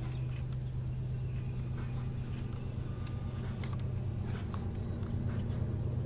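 A steady low hum, with faint short high chirps and ticks from small birds scattered over it.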